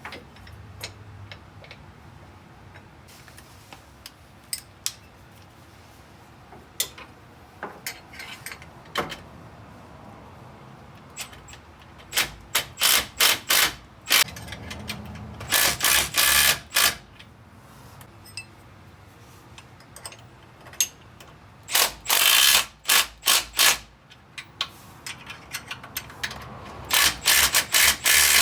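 A hand ratchet wrench clicking in four bursts of rapid strokes as the skid plate's clamp bolts are tightened down. Scattered single clicks and knocks of metal hardware come before the bursts.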